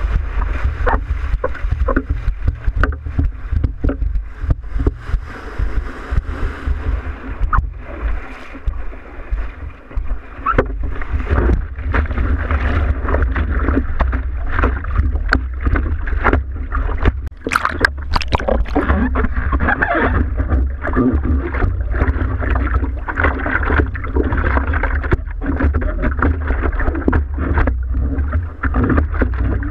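Seawater splashing and sloshing against a surfboard close to a camera mounted on its nose, with many short irregular splashes as the surfer wades and paddles through the shallows, over a steady low rumble.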